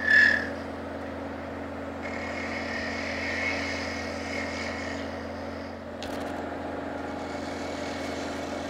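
Wood lathe motor running steadily while a gouge takes a light pull cut across the end of a small spinning wooden knob, with a short high-pitched squeal right at the start and a faint cutting hiss from about two to five seconds in. A single click comes about six seconds in.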